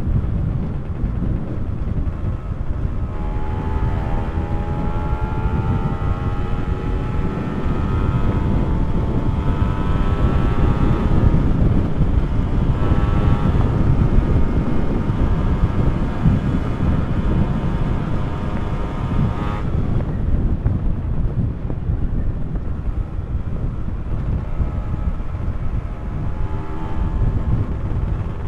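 Two-stroke motorcycle engine accelerating under way, its pitch climbing with small drops at each gear change, then cutting off abruptly about twenty seconds in; a shorter climb comes back near the end. Heavy wind rumble on the microphone throughout.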